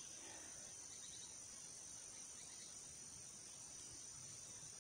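Faint, steady, high-pitched trilling of insects in the background.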